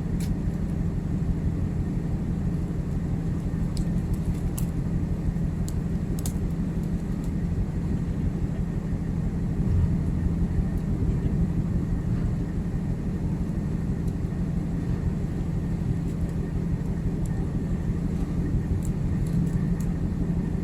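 Steady low drone of a ship's machinery, with a few faint ticks.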